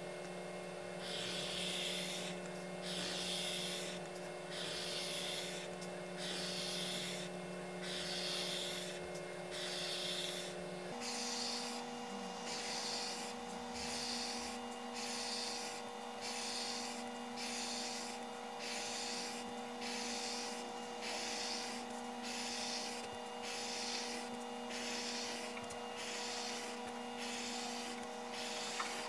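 Graphite pencil scratching across sketchbook paper, drawing one straight horizontal line after another in an even rhythm of about one stroke a second. A faint steady hum runs underneath, changing pitch about eleven seconds in.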